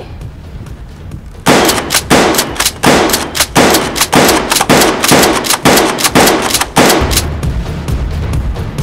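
A rapid string of loud gunshot-like bangs, about three a second for some five seconds, starting about a second and a half in, each with a ringing tail. It is gunfire sound laid over a Nerf blaster being fired.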